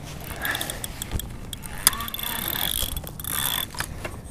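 Fishing reel working against a hooked blue catfish, with a steady ratcheting, geared clicking and a few sharper clicks as the fish is brought up.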